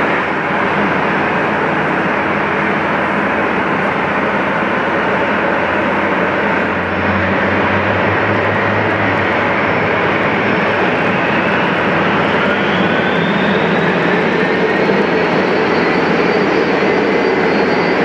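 Boeing 757-300 turbofan engines running on the apron, a steady jet rush. From about two thirds of the way in, a thin whine rises in pitch and then holds, as an engine spools up.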